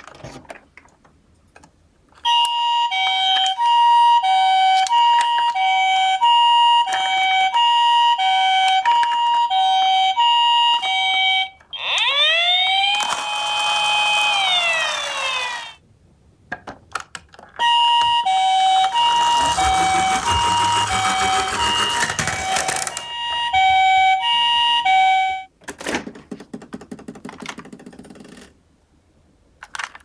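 Toy ambulances' electronic sirens: a Japanese two-tone 'pee-po' siren, a high and a low note alternating about one pair a second, then a short wail that sweeps up and holds a little before halfway, then the two-tone siren again with a rushing noise under part of it. Faint handling clicks in the gaps.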